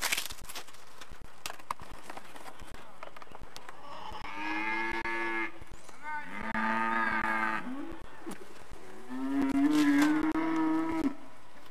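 Cattle mooing: three long, drawn-out calls about four, six and nine seconds in, the last one the loudest.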